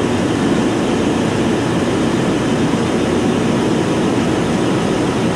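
Steady, loud running noise of refrigeration machinery: neighbouring compressors and a condenser fan in a compressor room, an even low-pitched rush and hum with no change.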